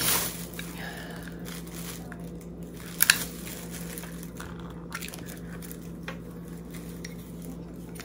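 Plastic makeup packaging of a blush compact being handled and opened: faint rustling and small clicks, with one sharp double plastic click about three seconds in.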